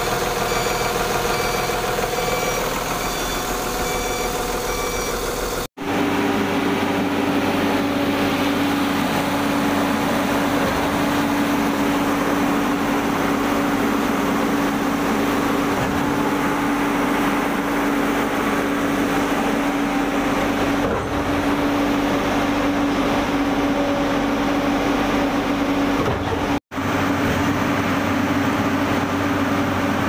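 Concrete pumping machinery running steadily: a trailer concrete pump working beside a transit mixer truck, a steady engine drone with a strong low tone. The sound cuts out briefly twice, about six seconds in and near the end.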